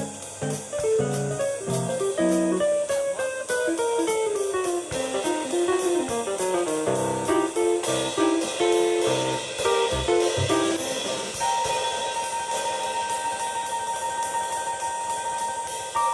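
Live instrumental rock jam on electric keyboard and drum kit. The keyboard plays fast melodic runs over a steady cymbal beat, then holds one long high note from about two-thirds of the way in.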